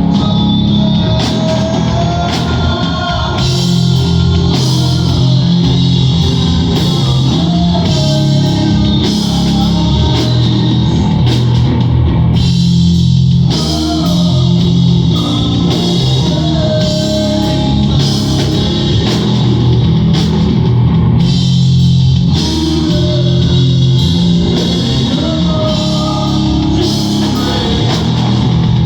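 Live rock band playing with electric guitar and drum kit, the music thinning briefly about 13 seconds in before the full band comes back.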